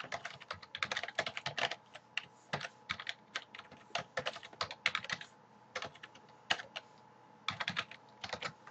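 Computer keyboard being typed on: quick runs of key clicks with short breaks, pausing for about a second near the end before typing resumes.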